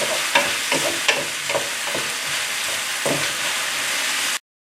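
Beef stir-fry with sauce and noodles sizzling in a hot pan while being stirred, with irregular scrapes and knocks of the stirring utensil against the pan. The sound cuts off abruptly near the end.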